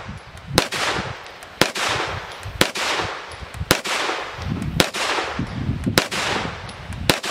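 Ruger PC Charger 9mm pistol firing in slow, steady single shots: seven shots about a second apart, each trailing off in an echo.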